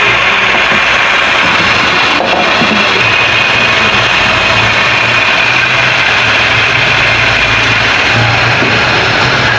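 Valve seat grinding machine running steadily on a cylinder head's valve seats, a loud, even grinding noise with a pulsing low hum.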